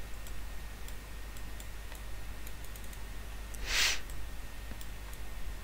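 Faint, scattered computer mouse clicks over a steady low hum, with one short hiss about four seconds in.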